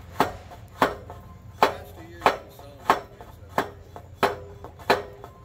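Eight hard hammer blows on the steel legs of a rusted TV antenna tower, about a stroke and a half a second, each blow ringing briefly in the metal.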